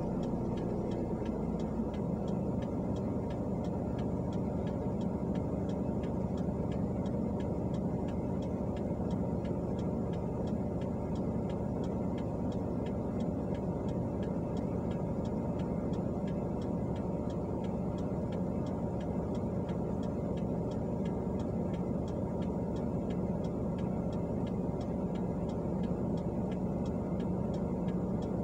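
Inside a car stopped at a light: the engine idling with a steady hum, and a regular ticking throughout from the turn-signal indicator.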